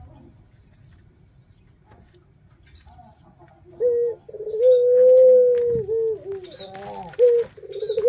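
Barbary dove (puter) cooing, starting about halfway through: one long held coo followed by several shorter coos.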